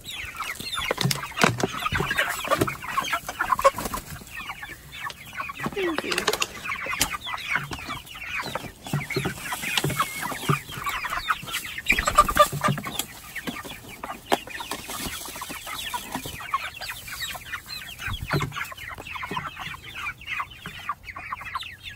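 A flock of chickens, mostly young white meat birds, clucking and peeping nonstop as they crowd in and peck at freshly scattered feed.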